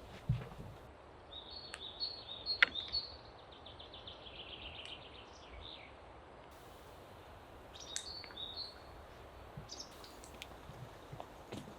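Small bird chirping and trilling in two quick bouts, one beginning about a second in and a shorter one around eight seconds, over a steady outdoor hiss. A single sharp click, the loudest sound, comes about two and a half seconds in, and a low thump comes just after the start.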